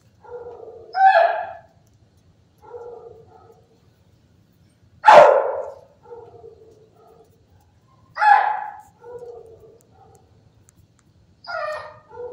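Dogs barking: four loud single barks about three seconds apart, the loudest about five seconds in, with fainter, lower barks or whines in between.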